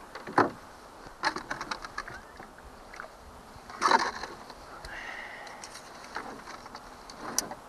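A scatter of clicks, knocks and scrapes on a small plastic boat's floor as a caught bass is handled and measured with a tape measure. A quick run of clicks comes in the first two seconds, and the loudest clatter about four seconds in.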